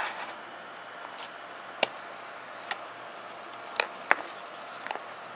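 A few sharp, light clicks and taps, about five in all and spaced irregularly, over a faint steady hiss.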